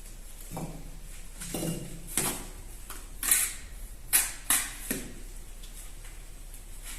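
Bricklaying: a steel trowel scraping mortar and tapping bricks into place, about seven short scrapes and clinks in the first five seconds.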